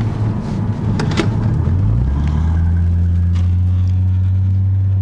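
Twin-turbo 1JZ-GTE straight-six of a Toyota JZX90 Mark II Tourer V, fitted with a pod filter, heard from inside the cabin while driving. A couple of sharp clicks come about a second in. The engine note rises just before two seconds in, then holds steady.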